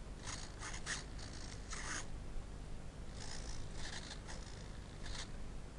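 Footsteps swishing through long grass close by: two runs of short rustling swishes, starting just after the start and again about three seconds in, over a steady low hum.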